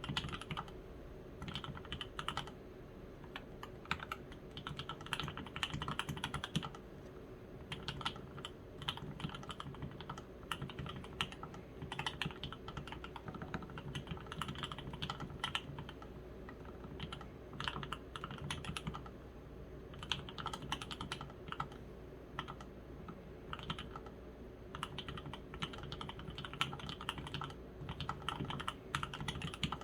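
Steady typing on an Evelyn ergonomic custom mechanical keyboard with lubed H1 switches and lubed stabilizers, in an anodized aluminium case and plate. Quick keystrokes come in runs of a few seconds, with short pauses between.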